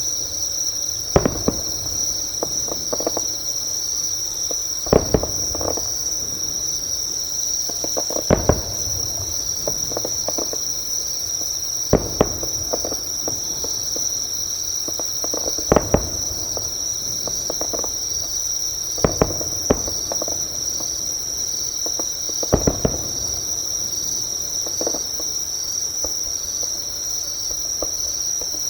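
Distant fireworks going off every few seconds as sharp bangs, some in quick clusters of two or three, over a close, steady high-pitched insect trill. A second insect chirps in a fainter, even pulse beneath the trill.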